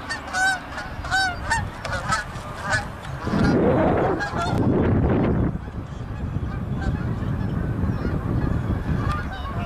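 Canada geese honking in flight overhead, a series of calls in the first few seconds. About three seconds in, a louder rushing noise takes over for about two seconds.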